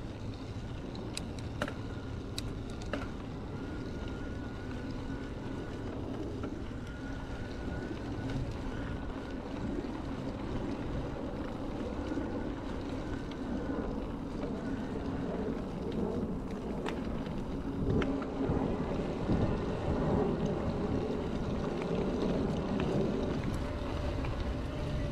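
Wind buffeting the microphone and tyres rolling over a trail while riding an electric bike, a steady rumbling rush with a few sharp clicks. A faint thin whine runs through the middle part.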